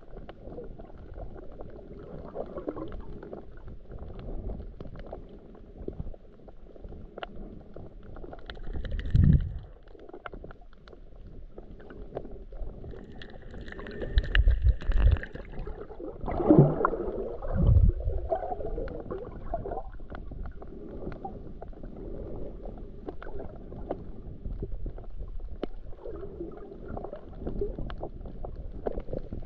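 Muffled underwater sound picked up by a GoPro in its waterproof housing while snorkeling: a low rumbling water noise with scattered faint clicks. A few heavier low thumps and gurgles come around the middle.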